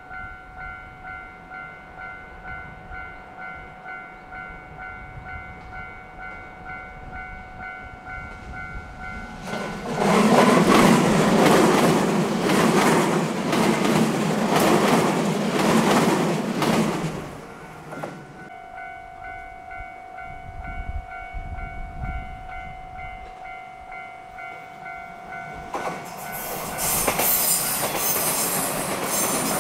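A railway level-crossing warning bell rings with an even pulse. About nine seconds in, a 227 series electric commuter train passes loudly for about eight seconds, drowning the bell. Near the end a second local train, a 115 series, approaches and grows louder as the bell goes on.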